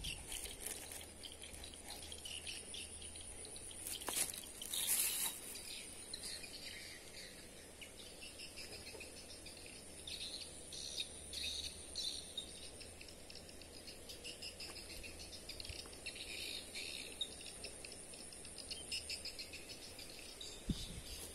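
Outdoor ambience of insects trilling steadily at a high pitch, with scattered bird chirps. A brief rustle of handling about four to five seconds in.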